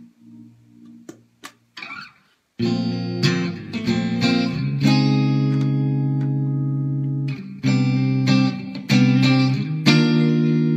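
Electric guitar played with a clean tone: soft picked notes at first, then from about two and a half seconds in, full chords strummed and left to ring, changing every second or two with a brief break past the middle.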